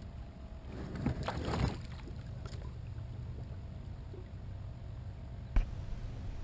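Water splashing about a second in as a released redfish kicks free beside a kayak, over a steady low hum. One sharp knock near the end.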